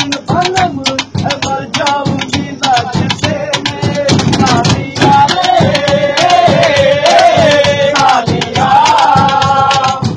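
Men singing a Hindi song together while slapping out a fast rhythm with their palms on the train carriage's metal walls and luggage rack. The singing swells and is held longer about halfway through.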